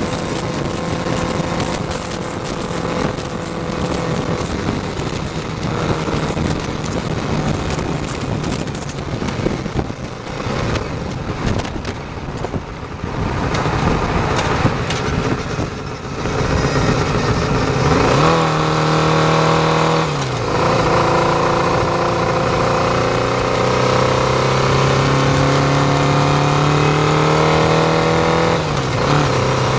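Honda CBR600F2 inline-four motorcycle riding at highway speed, its engine partly buried under wind buffeting on the bike-mounted camera. Past the middle the wind drops and the engine's steady note comes through clearly. The pitch drops sharply twice, about two-thirds through and near the end.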